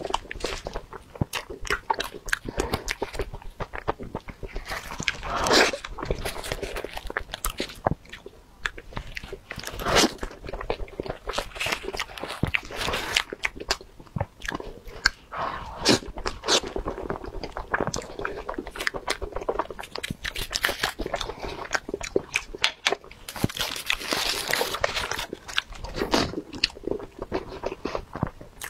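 Close-up eating sounds of soft daifuku rice-cake buns being bitten and chewed, with many small irregular mouth clicks and smacks, busier in a few short spells.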